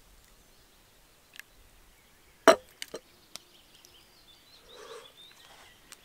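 A sharp knock, then three lighter clicks within the next second, from handling the black camp kettle on its stick pot-hanger over the fire. Faint bird calls behind.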